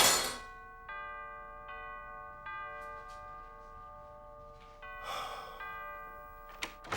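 Multi-note doorbell chime ringing, its bell tones entering one after another and ringing on, with a second pair of notes sounding later. A sharp thump at the start is the loudest sound, and a couple of clicks come near the end.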